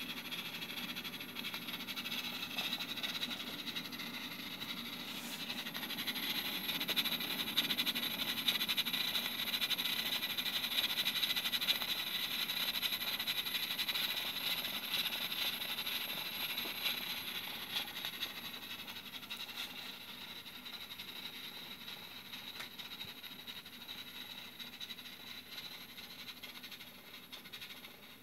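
Steam hissing from the pressure valve of a Cuchen IH electric pressure rice cooker as it cooks sticky rice under pressure. The hiss swells about six seconds in, holds strongest for several seconds, then slowly dies away.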